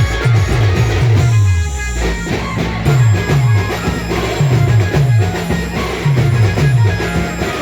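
Band music driven by a heavy drum beat, each low stroke dropping in pitch, with a melody line held above it. The upper parts briefly thin out about a second in.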